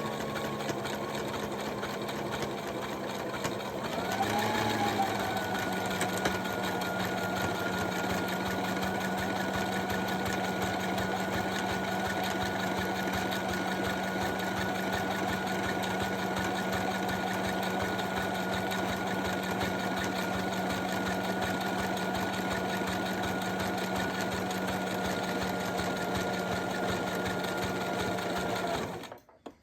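Brother LS-590 mechanical sewing machine running steadily as it sews a buttonhole with its buttonhole foot. Its motor hum shifts up about four seconds in, then holds steady until the machine stops just before the end.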